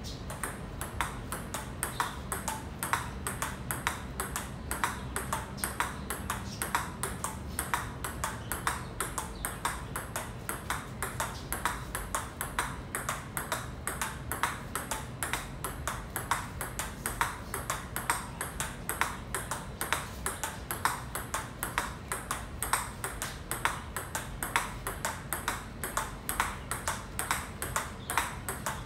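Table tennis rally in a steady forehand drill: the ball clicking off the bats and bouncing on the table in a fast, even run of sharp ticks, a few a second, without a break.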